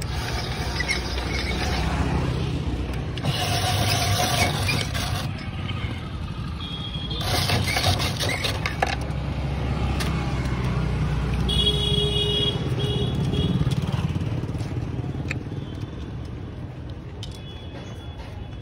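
SAMIR hand-cranked flywheel ice shaving machine grating a block of ice for chuski, in two scraping spells of a couple of seconds each, over a steady low rumble of street traffic.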